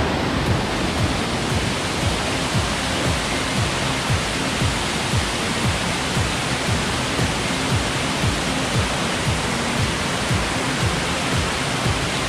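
Water rushing over rocks in a shallow stream cascade, a steady loud rush, under background music with a steady low beat about twice a second.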